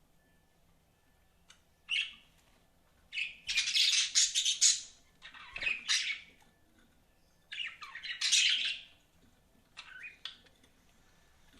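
Budgerigars chirping in several short bouts of rapid, high-pitched chatter with pauses between, beginning about two seconds in.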